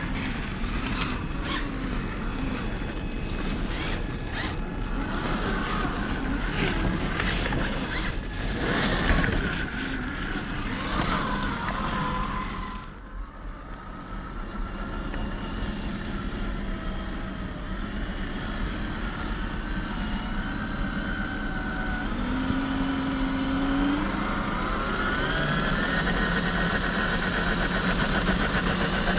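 Traxxas TRX-4 RC crawler's 550-size brushed electric motor and gearbox whining, the pitch rising and falling with the throttle, with scattered knocks in the first half.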